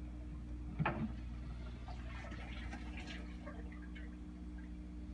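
Steady low hum of fish-room aquarium equipment, with one sharp knock a little under a second in as the drain hose is handled. Faint trickling and dripping water follows.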